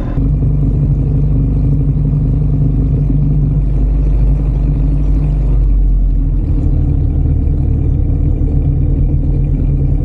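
Small outboard motor pushing an inflatable boat along under way: a steady low engine drone whose pitch shifts slightly about six seconds in.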